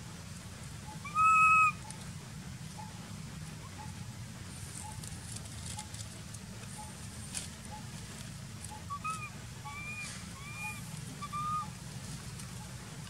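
Baby long-tailed macaque crying: one loud, drawn-out call about a second in, then a run of about five shorter, quieter cries near the end.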